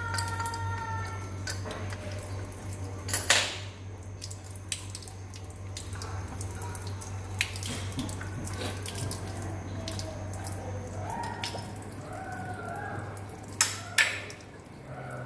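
Water trickling and dripping from the wall inlets as an old wall-mounted kitchen mixer tap is unscrewed from them, with a steady low hum underneath. Sharp metal knocks sound about three seconds in and twice close together near the end, as the metal tap is handled and set down.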